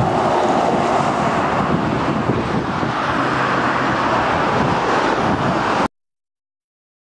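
Road traffic passing close by: an articulated lorry rolling past followed by cars, a steady rush of engines and tyres. The sound cuts off abruptly to silence about six seconds in.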